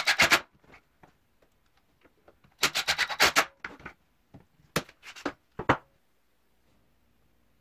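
Cordless drill-driver driving pocket-hole screws into a wooden frame joint in two short bursts of quick, rattling strokes, followed by a few separate sharp clicks.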